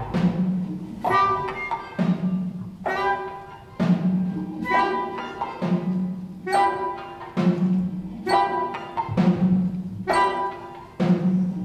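Live ensemble music: a repeating percussion pattern with a low drum stroke about once a second, over which a flute and pitched percussion play short melodic figures.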